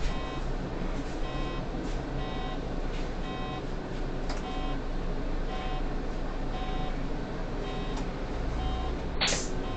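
Short electronic beeps from a city bus's dashboard repeat regularly, roughly one every three-quarters of a second, over the steady rumble of the bus's engine and tyres. A brief hiss comes near the end.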